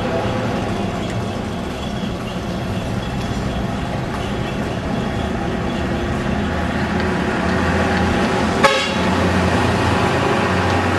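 Steady low engine drone of a road vehicle, heard from on board while it drives along a town street, with traffic around it and a horn tooting. A single sharp knock comes about nine seconds in.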